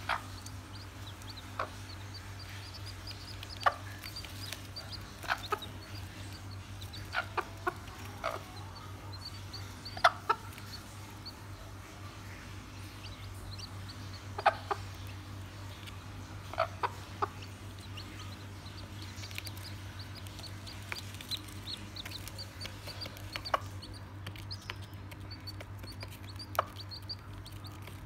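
Mother hen clucking in short calls while her chicks peep, with brief sharp sounds every second or two over a steady low hum.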